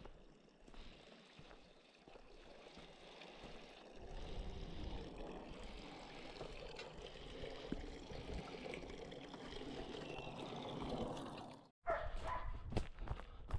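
Water trickling and splashing into a stone trough as a steady wash of sound. It stops suddenly near the end and gives way to hunting dogs barking several times in quick succession.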